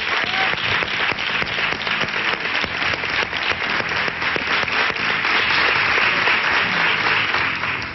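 Studio audience applauding, a dense steady clapping that grows a little louder in the second half.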